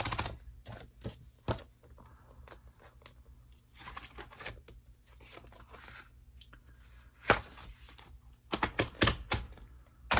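Paper pages being pulled off the plastic discs of a disc-bound Happy Planner: soft paper rustling broken by sharp snaps and clicks, with a quick run of clicks near the end.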